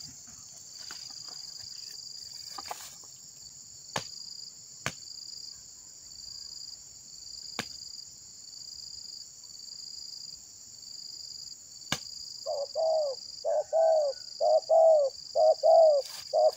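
A spotted dove cooing in a quick run of short notes, about two a second, starting roughly three-quarters of the way through. Under it, insects keep up a steady, evenly pulsing high buzz, with a few sharp clicks.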